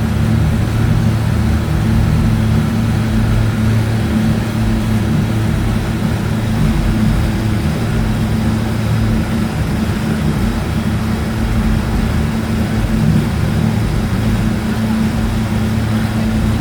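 An engine running steadily at a constant speed, with a low hum that holds one pitch throughout.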